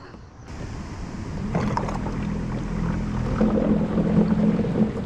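The Old Town Sportsman 106MK kayak's built-in Minn Kota electric motor hums steadily from about a second and a half in, with water washing past the hull as the kayak moves off.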